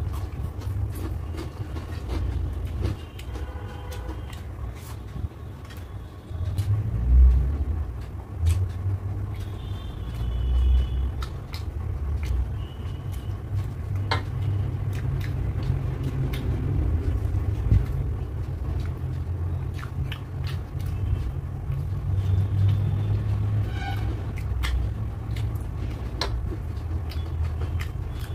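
Eating by hand: rice and curry being mixed and chewed, with many small wet clicks and smacks. Under it runs a steady low rumble that swells about 7 and 10 seconds in.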